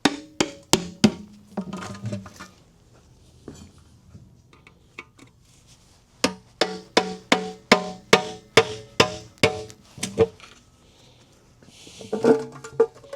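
Background music with a beat of sharp percussion strikes, about two or three a second, thinning out in the middle and coming back regular.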